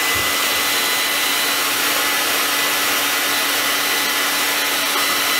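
Hand-held hair dryer running steadily, a rush of air with a steady high whine, blowing hot air to soften the glue holding the tablet's screen.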